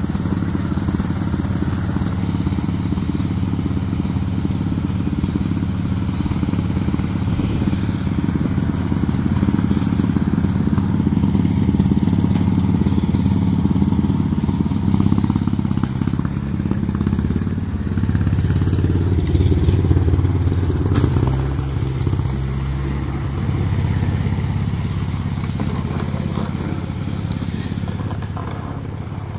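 Old Ford tractor's engine running steadily as it pushes snow with a front plow blade, its note shifting partway through as the load changes, then fading near the end as the tractor pulls away.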